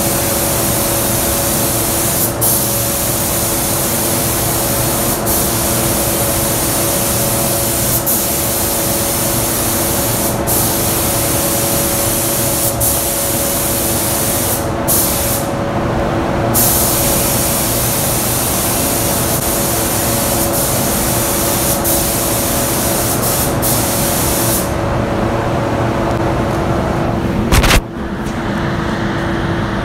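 Gravity-feed paint spray gun hissing as it sprays the car's panel, over a steady hum, with brief breaks every two to three seconds between passes. The hiss breaks off for about a second just past halfway and stops about five seconds before the end, followed by a sharp knock, leaving the hum.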